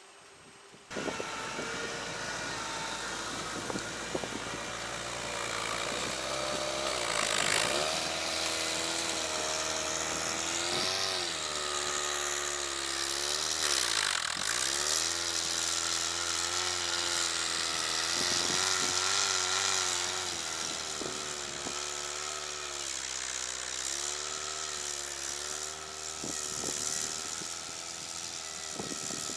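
Engine of an articulated all-terrain vehicle working hard as it climbs a hill through deep snow, coming in about a second in. The revs rise and fall again and again, with a deep dip near the middle.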